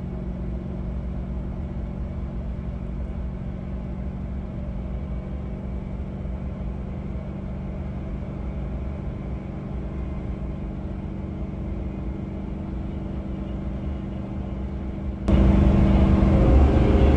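Chevrolet Duramax V8 turbo-diesel pulling hard at about 3,000 rpm under a heavy towing load up a steep grade, a steady drone heard from inside the cab. About fifteen seconds in it suddenly gets much louder.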